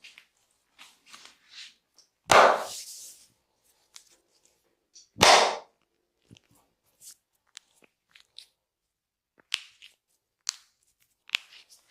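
Hand-on-body massage: two loud open-hand slaps about three seconds apart, with faint taps and rubbing between and a few sharper short clicks near the end.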